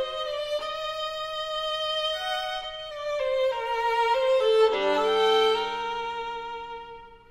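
Background music: a slow violin melody of long held notes, joined by lower sustained notes about two-thirds of the way through, then softening near the end.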